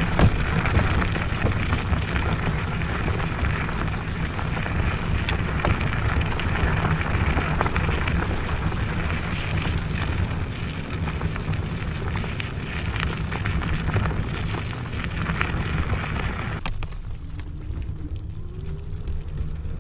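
Electric scooter riding over a rough dirt track: steady wind rumble on the microphone with hissing tyre and ground noise. About 17 seconds in the hiss drops away, leaving mostly the low rumble.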